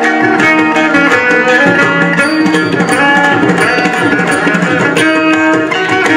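Carnatic music in raga Hindolam: a Saraswati veena playing plucked notes with sliding ornaments, over a busy run of hand-drum strokes from mridangam and ghatam.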